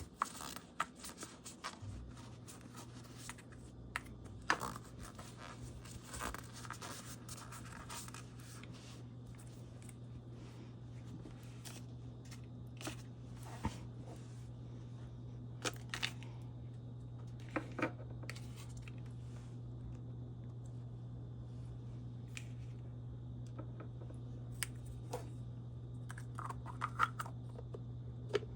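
Small plastic toy egg pieces being dried and handled: scattered rubbing, scraping and light clicks. A steady low hum comes in about two seconds in.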